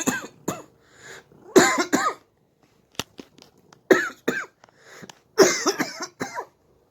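A man coughing from Covid-19 in repeated fits: several clusters of two or three harsh coughs in quick succession, a second or two apart.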